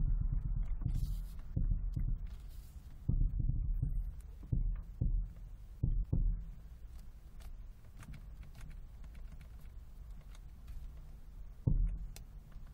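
Car suspension knocking: dull low thumps with sharp clicks, about ten in the first six seconds, then a quieter stretch with a low steady rumble and one more thump near the end. The knocking is the fault the owner is showing.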